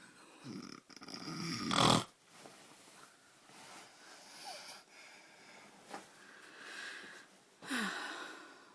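Snoring in sleep: irregular snores, the loudest about two seconds in and another loud one near the end.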